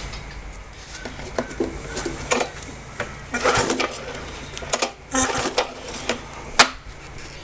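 Briggs & Stratton 500 series lawnmower engine turned over by hand on its recoil pull cord, twice, with the spark plug out and a spark tester fitted, so it cranks without firing. Clicks and knocks of handling the mower in between.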